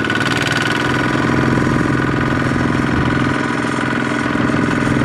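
Single-cylinder diesel engine of a Kubota ZT155 two-wheel tractor running steadily with a fast, even firing beat.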